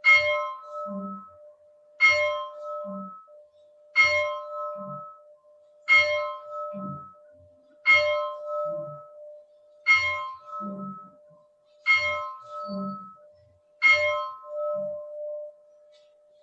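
Church bell tolling slowly, one stroke about every two seconds, eight strokes in all, with the bell's hum carrying between strokes. The strokes stop a little before the end. It is a memorial toll for the COVID-19 dead, one stroke for every 10,000 deaths.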